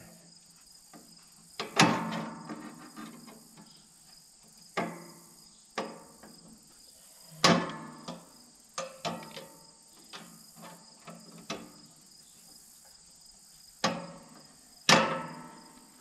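Broken steel bandsaw blade and sawmill head clanking and ringing in several sharp knocks as the blade is pulled and worked loose, the loudest about two seconds in and near the end. A steady high insect chirring carries on behind.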